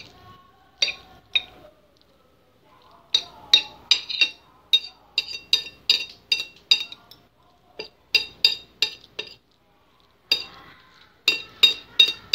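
Metal cutlery clinking against a ceramic plate while instant noodles are mixed with their seasoning and chilli sauce: runs of quick, ringing strikes about three a second, broken by short pauses.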